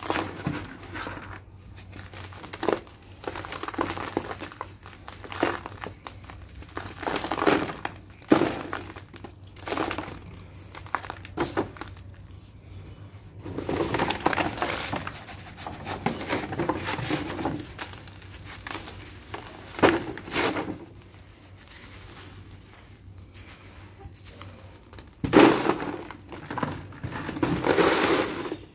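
Dry lumps of hardened sand-and-cement mix crunching as they are crumbled by hand over a sheet in a tub, in irregular bursts with sharp crackles, loudest near the end.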